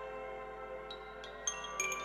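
Wind chimes ringing: many overlapping metallic tones hang and ring on. A few new, higher strikes come in the second half.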